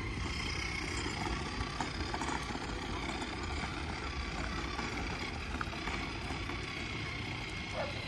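Outdoor seafront street ambience: a steady low rumble with faint, steady high-pitched tones above it and a few faint short sounds here and there.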